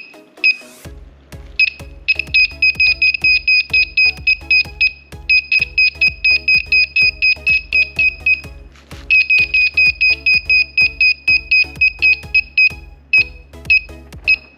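Electronic buzzer of a homemade earthquake alarm beeping rapidly, about six beeps a second, in three long runs with short breaks and a few single beeps near the start and end. A steady beat of background music plays underneath.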